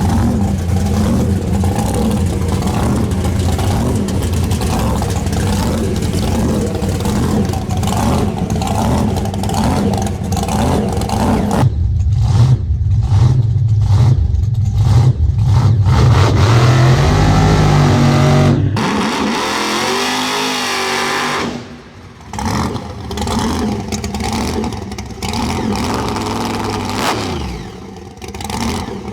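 Drag race car engines, loud and uneven at first, then a hard run with the engine note climbing in pitch until it cuts off sharply. The sound then drops and trails away with a falling pitch, and lighter engine revving follows near the end.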